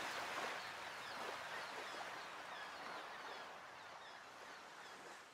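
Faint outdoor ambience: a steady rushing hiss with small birds chirping over and over, a few short chirps a second, fading out towards the end.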